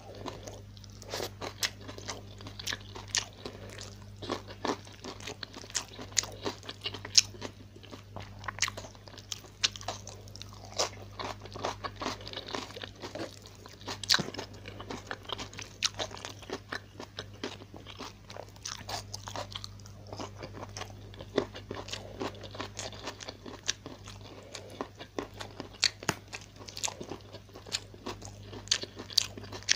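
A person chewing and crunching a meal of fried tilapia and rice close to the microphone, eating by hand: many irregular sharp crunches and clicks. A steady low hum runs underneath.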